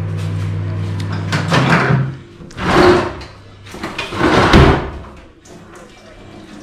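A wooden kitchen drawer pulled open and cutlery rattled in it, in three loud noisy bursts about a second apart. Under the start runs a steady low hum that stops about a second and a half in.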